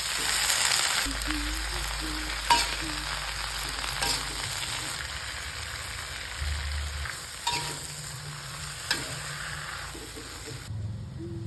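Food sizzling as it fries in a pan while being stirred, with a few sharp knocks of the utensil against the pan. The sizzle drops away shortly before the end.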